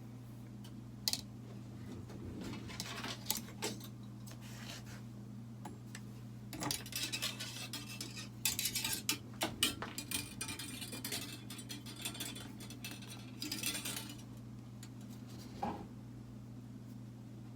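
Metal wire being bent and woven by hand: irregular light clinks and scraping, in clusters that are busiest in the middle, over a steady low hum.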